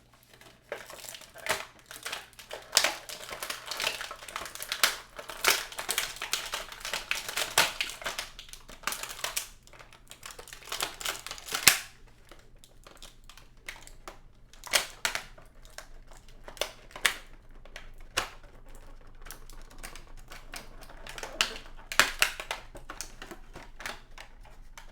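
Plastic action-figure packaging being handled and pulled apart as the figure is taken out: a dense run of crinkling and sharp clicks for about twelve seconds, then sparser single clicks.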